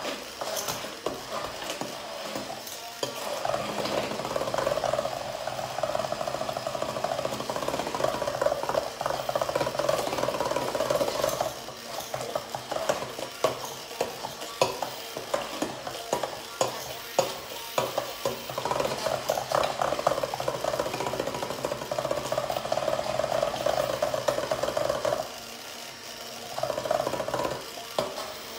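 Stick hand blender running in a glass bowl of cupcake batter: a steady whir with a low hum and many short clicks and knocks. The sound dips briefly about 11 seconds in and again near the end, then carries on.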